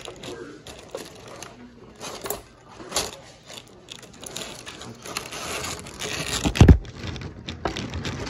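Plastic packaging crinkling and rustling as it is handled, with scattered clicks and one heavier thump about two-thirds of the way through.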